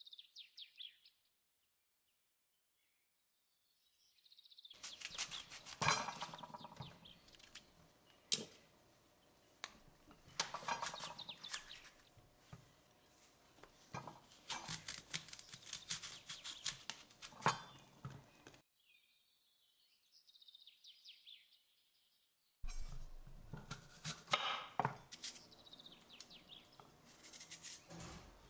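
Kitchen preparation sounds: utensils and dishes clinking and knocking in many sharp taps, in two stretches broken by a pause with a faint high-pitched chirping sound.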